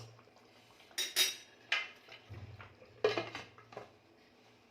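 Metal pressure cooker lid clanking against the pot as it is fitted and closed, a handful of sharp clanks with the strongest about a second in and about three seconds in.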